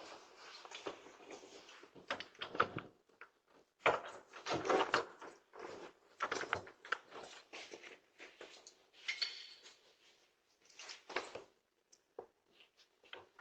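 Irregular knocks, bumps and rustling picked up by a doorbell camera's microphone, with clusters of them about 4 to 5 seconds in and again near 6 to 7 seconds in.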